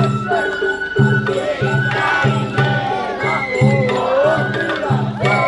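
Japanese festival hayashi music: drums keep a steady rhythm under held notes from a high flute, with wavering pitched voices mixed in.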